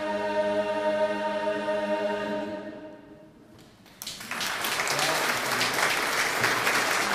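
An unaccompanied mixed choir holds the final chord of a shape-note anthem, then lets it fade away. After a brief hush, the audience starts applauding about four seconds in.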